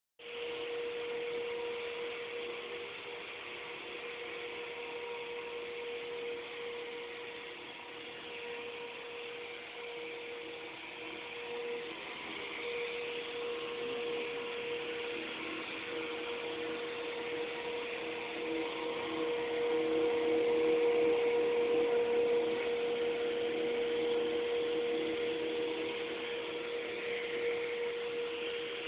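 Industrial tile-and-grout cleaning machine running steadily while working dirt loose from grout: a steady whine over a hiss, growing somewhat louder about two-thirds of the way through.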